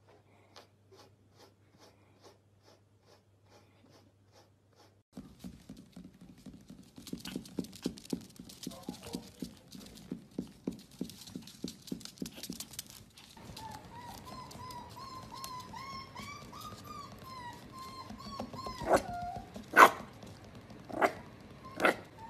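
Soft brush strokes through a corgi's fur, about two a second, then many small paws pattering fast on a wooden floor. A corgi puppy then whines in one long, high, wavering note and gives four sharp yips near the end, the second one the loudest.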